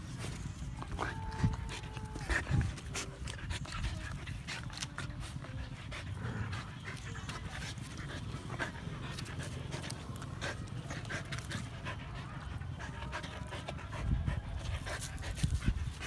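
Dogs panting close up, with scattered sharp clicks and rustles.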